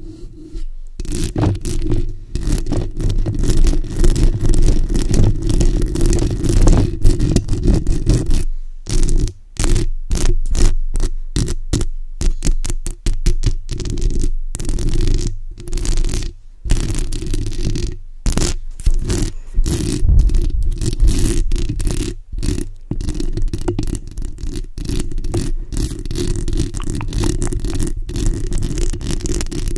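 Long acrylic fingernails scratching and tapping directly on a bare condenser microphone's metal mesh grille and body, close and loud, with a heavy rumble from the handling. The sound is a continuous scratchy rasp, and about a third of the way in it breaks for several seconds into quick separate taps and strokes.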